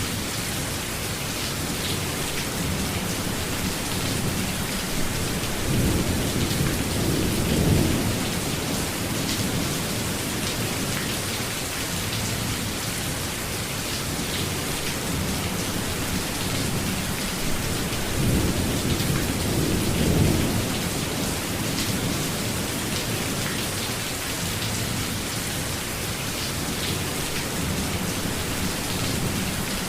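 Steady heavy rain, a dense even hiss, with low rolls of thunder swelling twice: about six seconds in and again near twenty seconds.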